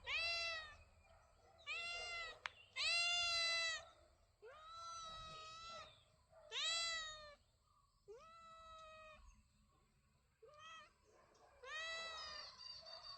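Domestic cat meowing repeatedly: about eight separate meows one to two seconds apart, most long and drawn out, one short. A single sharp click about two and a half seconds in.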